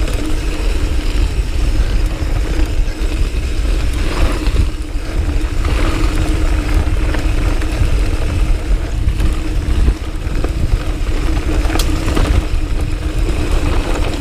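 Wind rumbling on the microphone while a Diamondback Sync'r mountain bike rolls fast down a dirt singletrack. A steady hum runs under scattered knocks and rattles from the tyres and bike hitting bumps.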